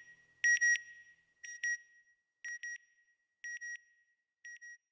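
Electronic beeps in pairs, about one pair a second, high and evenly pitched, fading a little with each pair. Five pairs sound, then it goes quiet just before the end.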